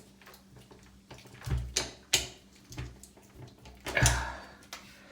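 Clicks and knocks from a screwdriver and a uPVC window handle as a Phillips screw holding the handle is tightened, a handful of short sharp knocks, the loudest about four seconds in.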